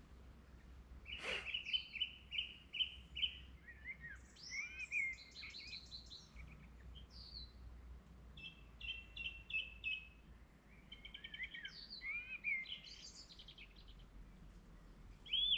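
Several songbirds singing, with runs of short repeated high notes and a few downward-sweeping notes, and a brief sharp chirp or click about a second in.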